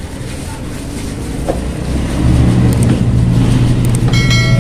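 A low, steady engine rumble from a vehicle, growing louder about halfway through. Near the end, a short electronic chime of several steady high tones starts suddenly, the sound effect of a subscribe-button animation.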